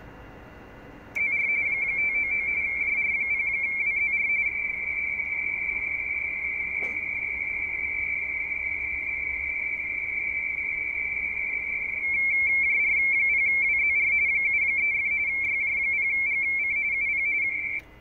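RTTY radioteletype signal from a transceiver's speaker: a steady two-tone warble around 2 kHz, the data keyed by shifting between two tones 170 Hz apart. It starts about a second in, gets a little louder about two-thirds of the way through, and cuts off suddenly near the end.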